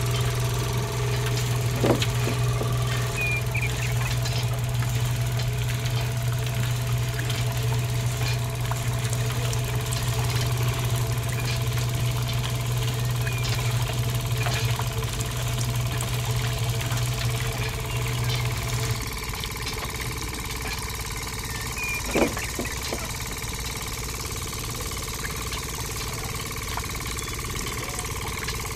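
Small electric motor driving a miniature roller press through a belt, a steady low hum that drops away about two-thirds of the way through. Two sharp snaps, one about two seconds in and one near the end, as green stalks are fed between the rollers.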